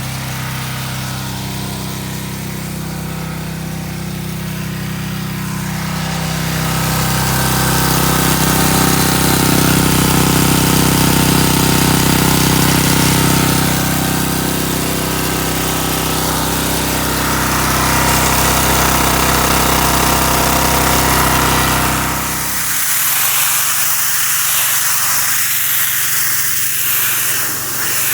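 Petrol-engine pressure washer running steadily; about six seconds in, the high-pressure water spray joins with a loud hiss. About five seconds before the end the engine's low hum suddenly drops away, leaving mostly the hiss of the water jet.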